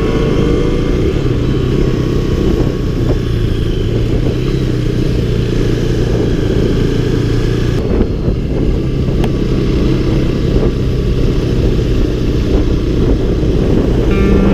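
Motorcycle riding at speed, its engine running steadily under a heavy wind rumble on the microphone; the sound changes abruptly about eight seconds in.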